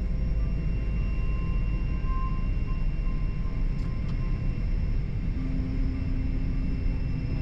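Steady low rumble inside the cabin of a Boeing 777-300 as it taxis, with faint steady high tones over it and a lower hum joining about five seconds in.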